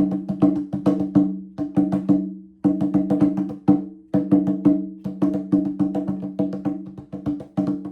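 Instrumental music played on a pitched percussion instrument: quick, rhythmic wooden-sounding strikes repeat a few low notes. The pattern breaks off briefly twice, a little past two seconds in and again near four seconds, then picks up again.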